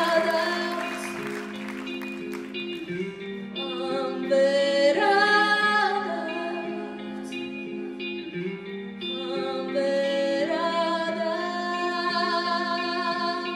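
A woman singing a song live over plucked-string accompaniment with held low notes. Applause dies away just as it begins.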